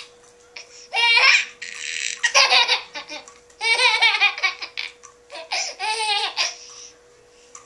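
A toddler laughing in four bursts, each a quick run of high-pitched laughs, with short pauses between them. A faint steady hum lies underneath.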